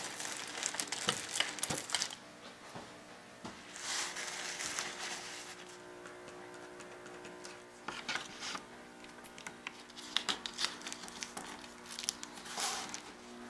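Plastic sheeting and paper crinkling and rustling as they are handled, in short bursts a few seconds apart.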